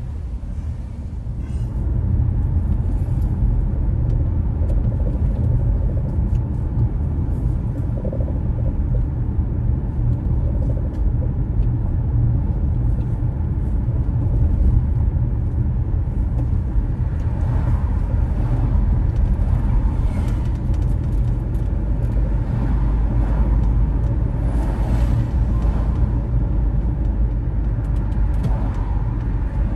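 Steady low rumble of a car driving on city roads: engine and tyre noise. It gets louder about two seconds in, and fainter scattered noises sit over it in the second half.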